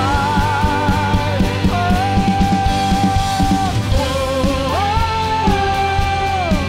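Worship music: long held melody notes with vibrato, stepping down and gliding up between pitches, over a steady beat.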